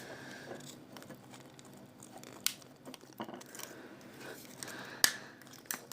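A small mobile phone's casing and internal parts being pried and picked apart by hand: faint rustling with a few sharp clicks, one about two and a half seconds in and another about five seconds in.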